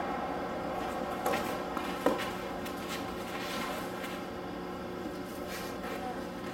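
Steady outdoor background noise with a faint low hum, broken by two sharp knocks, one about a second in and a louder one just after two seconds, on a hard tennis court.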